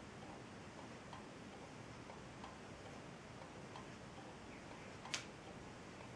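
Homemade low-temperature-difference Stirling engine built from tin-can lids, running slowly on the cold of frozen peas. Its mechanism gives a faint, regular tick about every two-thirds of a second, with one sharper click about five seconds in.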